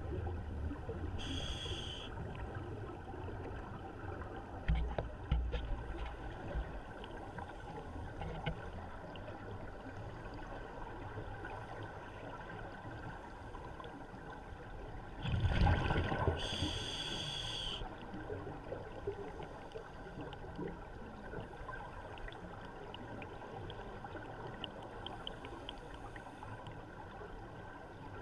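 Underwater ambience with a scuba diver breathing through a regulator: a burst of exhaled bubbles about halfway, followed by a hissing inhalation, and another short inhalation hiss near the start.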